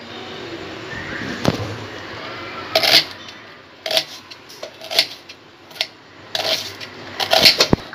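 Kitchen knife slicing a red onion on a wooden cutting board: sharp cuts about once a second, with a few quicker ones near the end.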